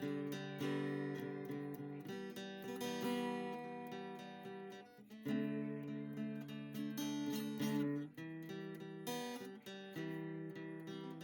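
Background music: acoustic guitar strumming chords, with a brief dip about five seconds in.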